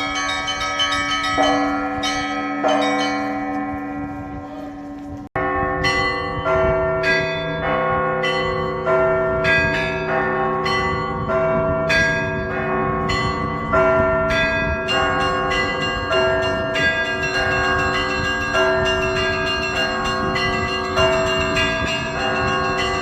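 Russian Orthodox monastery church bells being rung (zvon). Several bells ring with long decaying tones until the sound cuts off abruptly about five seconds in. A denser peal then starts, with smaller bells struck about twice a second over the held hum of deeper bells.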